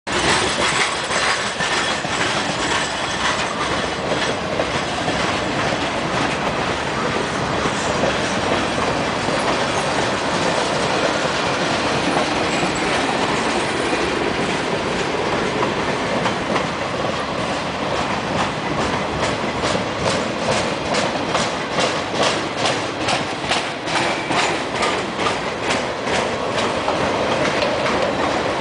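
Freight train rolling past, its cars and wheels making a steady noise on the rails. Through the second half comes a rapid, even clickety-clack of the wheels passing over the rail joints.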